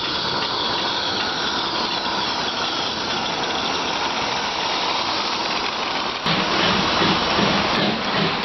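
A pair of 16mm-scale live-steam garden-railway locomotives running with a train, giving a steady hiss of steam. About six seconds in the sound changes abruptly and becomes louder and deeper.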